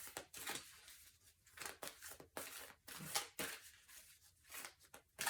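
Tarot cards being handled and drawn from the deck: a string of short, irregular papery rustles and flicks.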